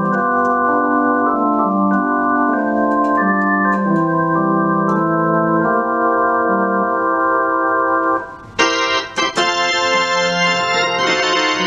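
Electronic keyboard on an organ voice playing a gospel hymn in slow, held chords. A little over two-thirds of the way through, the sound briefly drops away and comes back brighter and fuller, a change to a different organ setting.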